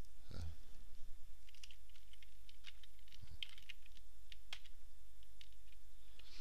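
Scattered light computer keyboard clicks over a steady low electrical hum.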